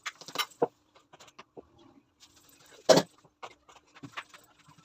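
Kitchen clatter while making rotis: short knocks and clinks of utensils, the loudest about three seconds in, over a faint steady hum.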